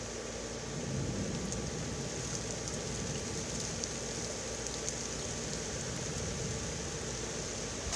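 Steady rain falling in a thunderstorm, an even hiss that grows a little louder about a second in.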